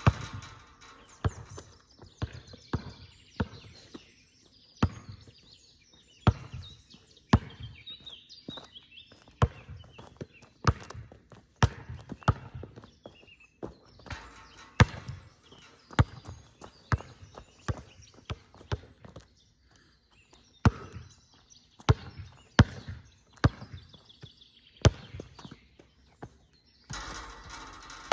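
A basketball bouncing on a hard court: single sharp bounces at irregular intervals of about a second. A louder, noisier sound comes in near the end.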